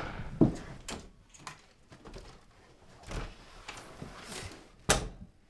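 A few scattered knocks and bumps of a body hitting and sliding against wooden doors, the loudest a sharp thump near the end.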